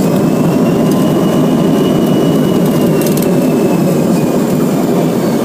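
Cabin noise of a CRJ-200 regional jet taxiing after landing: a steady rumble from its rear-mounted GE CF34 turbofans and the airframe. A faint high whine rises a little and falls back in the first few seconds.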